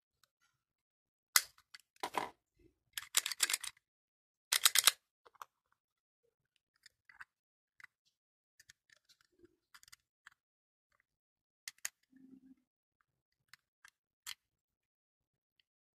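Trodat 4810 date stamp being handled while its date bands are adjusted: a cluster of sharp clicks and rattles in the first five seconds, then scattered faint clicks.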